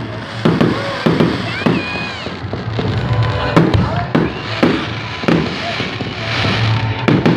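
Fireworks going off in a rapid series: aerial shots bursting with a sharp bang about every half second.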